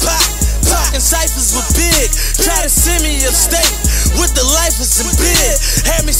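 Hip hop track with rapped vocals over a steady heavy bass line and a drum beat.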